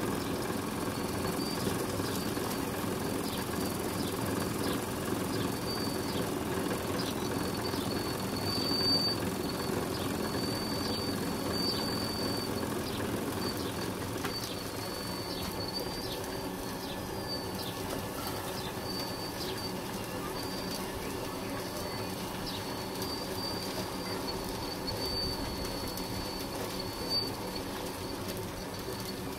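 RC hydraulic excavator (Lesu PC360) working: its hydraulic pump runs with a steady hum while the boom, bucket and direct-drive slew motor move, with a thin high whine that keeps breaking off and dipping briefly in pitch.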